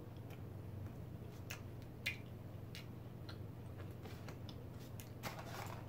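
Faint, irregular little clicks of someone chewing food with their mouth closed, over a low steady hum.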